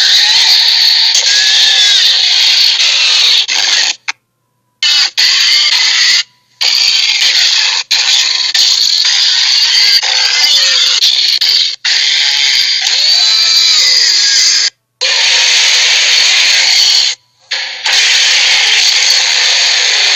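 Loud, harsh, hissing creature sound effects with faint wavering screech tones, played as a string of takes that cut off suddenly into short silences several times.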